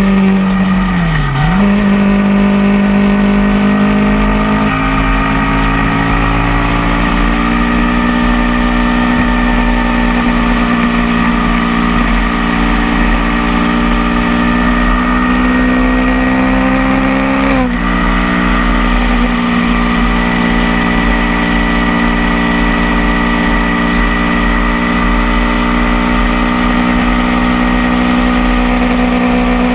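Motorcycle engine running at road speed, its pitch climbing slowly as it pulls. The pitch dips sharply about a second in, and drops suddenly at a gear change about 18 seconds in before climbing again.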